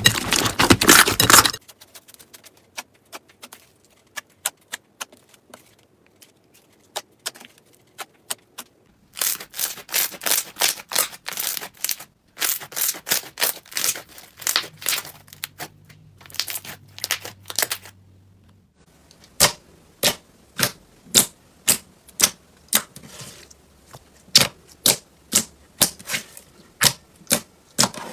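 Crunchy slime being squeezed and pressed, giving sharp crackling clicks: a dense crackle at first, then scattered clicks and short clusters, and in the last third a regular run of about two clicks a second.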